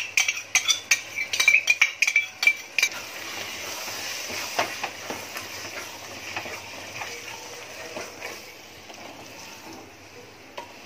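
Wooden spatula stirring a thick vegetable and yoghurt mixture in an aluminium pot. For about the first three seconds it knocks and scrapes against the pot in quick clinks, and the metal rings after each one. After that the stirring turns softer and steadier, and it fades near the end.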